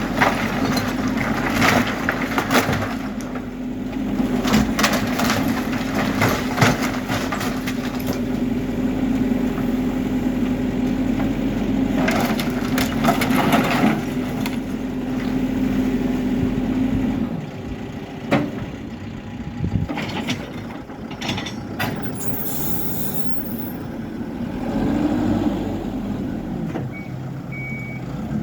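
Backhoe loader's diesel engine running under load while wood and masonry crack and crash as it breaks into a building. About two-thirds of the way through the engine note drops and the crashing thins out, and near the end a reversing beeper starts.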